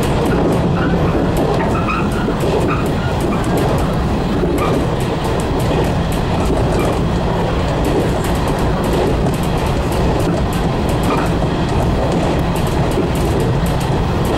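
JR Kyushu 415 series electric train running at speed, heard from inside the front car: a steady rumble of wheels on rail with rapid light clicking.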